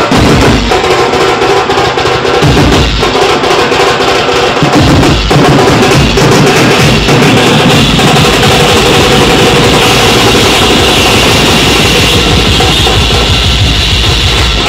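Loud band party music from a truck's loudspeakers: electronic drum-pad beats with bass drum and drum rolls over a held melody.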